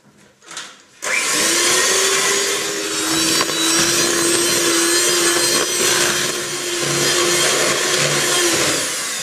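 Electric hand mixer whipping ganache in a bowl: the motor starts suddenly about a second in and runs at a steady whine, then winds down near the end.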